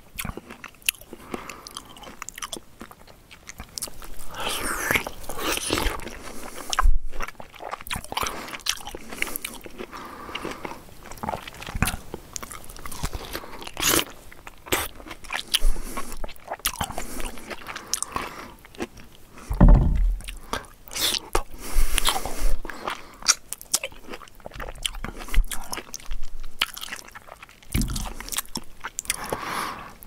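A person biting into a juicy piece of fruit and chewing it, in irregular bouts, with a few louder bites standing out.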